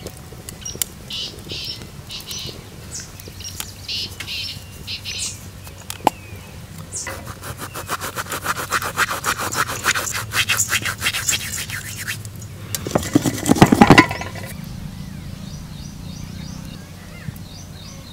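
Hands working dry maida flour with ajwain and salt for samosa dough: light rustling, then a run of quick rubbing and scraping strokes, and a heavier louder scrape near the end.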